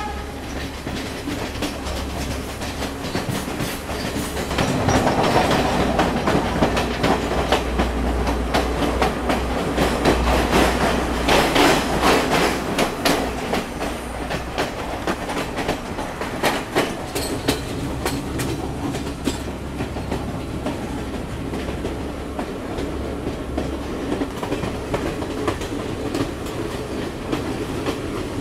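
Passenger train running along the track, heard from an open carriage doorway: wheels clattering over the rails over a steady low rumble. It grows louder from about five seconds in for several seconds, then eases.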